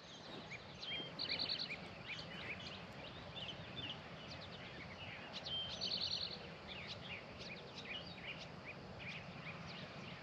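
Songbirds singing and chirping. One repeats the same phrase twice, a short held whistle followed by a quick run of notes, over a faint steady low hum.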